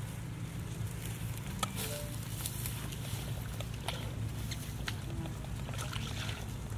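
Footsteps crackling and rustling through dry grass, in scattered short clicks, over a steady low rumble.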